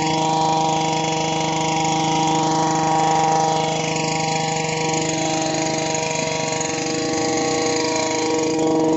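STIHL BT 230 earth auger's small two-stroke-mix (4-MIX) petrol engine running steadily at a constant speed.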